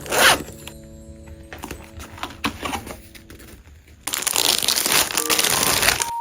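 Packaging being handled and crinkled: a sharp rustle right at the start, then a longer stretch of dense crinkling in the second half, over soft background music with held notes.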